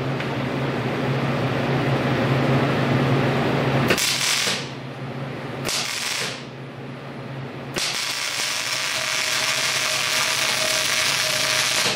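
Electric arc welding on steel plate: the arc's hiss in a long run with a low hum, then two short bursts, then another steady run from about eight seconds on.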